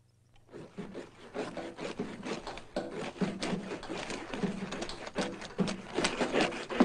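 Ice scraper scraping frost off a car windshield in quick, irregular rasping strokes, about two a second, starting about half a second in.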